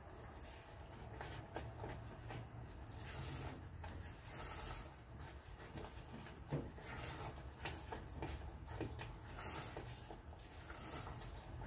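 Silicone spatula stirring and scraping thick brigadeiro in an aluminium saucepan over the heat: soft, irregular scrapes and swishes, with one sharper knock about six and a half seconds in, over a low steady rumble.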